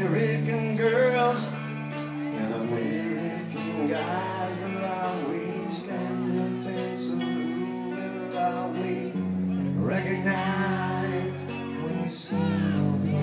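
Live rock band playing: a male singer sings over guitar and drums, with cymbal strikes every second or so.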